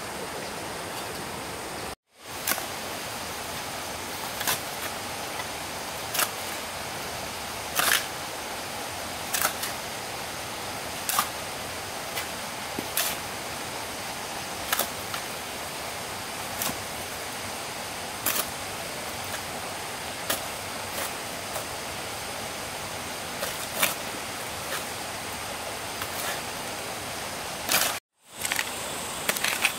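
Sharp strikes of a hand tool at a steady working pace, about one every second and a half to two seconds, over a steady hiss; the sound cuts out briefly twice.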